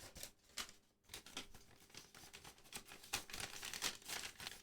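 Crinkling and rustling of a trading-card booster pack wrapper being handled, in a run of short irregular crackles that grow busier in the second half.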